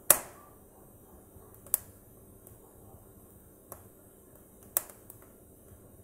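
Split wood logs burning in a fireplace, crackling with a few sharp pops, the loudest right at the start and others spread out over the next five seconds, over a faint steady hiss.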